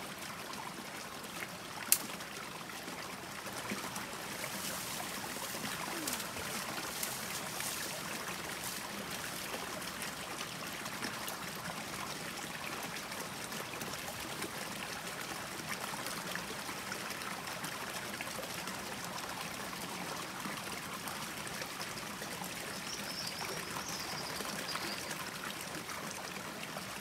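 Stream water spilling out of a stone culvert into a pool, a steady rush of running water. A single sharp click about two seconds in.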